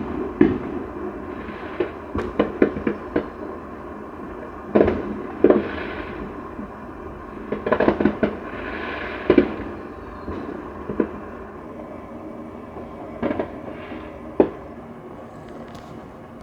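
Fireworks going off: a run of sharp bangs at irregular intervals over a crackling haze, thinning out towards the end.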